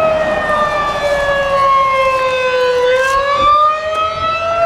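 A siren wailing, one loud tone that sinks slowly in pitch for about three seconds, then climbs back up.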